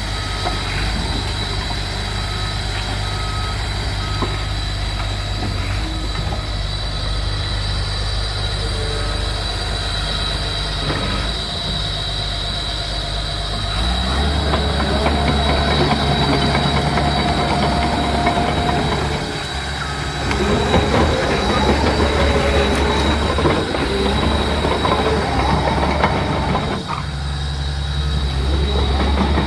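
Caterpillar crawler dozer's diesel engine running, steady at first and then louder from about halfway through as the machine drives and turns. Its steel tracks clank and squeal as it moves.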